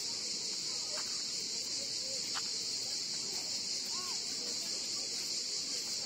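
Chorus of cicadas making a steady, high-pitched drone, with faint voices of people talking beneath it.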